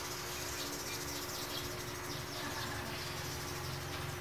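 Ambient room sound with many short high chirps, several a second, over a steady low hum.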